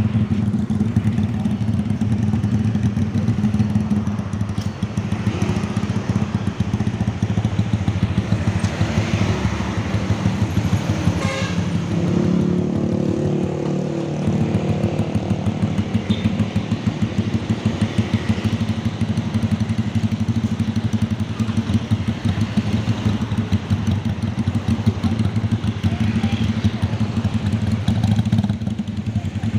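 Honda Tiger single-cylinder four-stroke motorcycle engine running steadily with a low, fast-pulsing note. About twelve seconds in, a higher engine note joins it for a couple of seconds.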